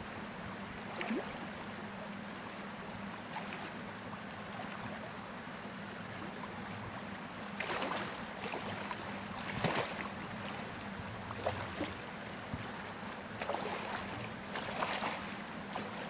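River water flowing steadily over a shallow rocky bed, with several brief splashes, some close together in the second half.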